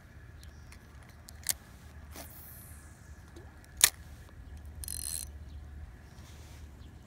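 Spinning fishing reel being handled: two sharp clicks, the second the loudest, with a short whirr of the reel about five seconds in.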